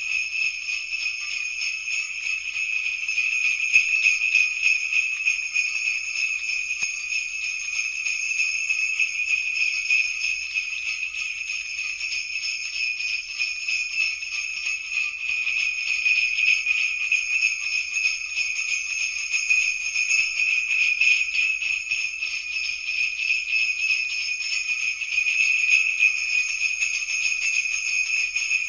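Sleigh bells jingling in a fast, unbroken shake, bright and high-pitched, at an even level.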